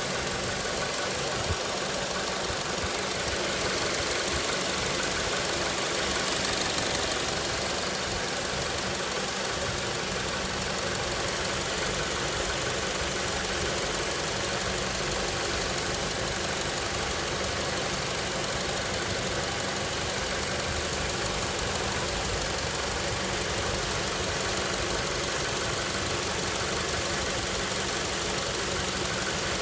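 Honda Accord's K20A6 2.0-litre four-cylinder engine running steadily, making a noise the owner calls a bad sound.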